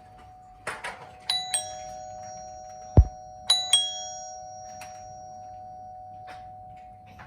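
Doorbell chiming: two quick two-note chime strikes, then the same pair again about two seconds later, with a steady ringing tone that hangs on after them. A sharp thump comes just before the second chime.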